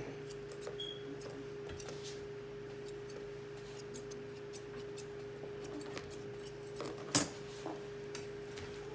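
Grooming shears snipping the hair around a dog's front foot: a scatter of light clicks over a steady low hum, with one loud clack about seven seconds in.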